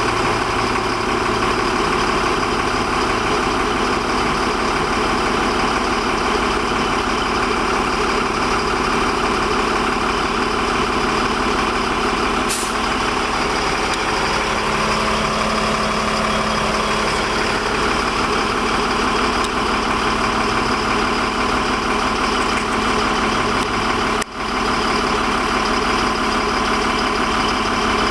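Mobile crane's engine running steadily, with a brief dropout near the end.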